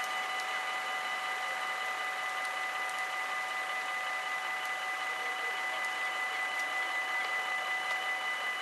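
Level crossing warning bells ringing without a break at a few fixed pitches, with a slight regular pulsing: the barriers are down and a train is approaching.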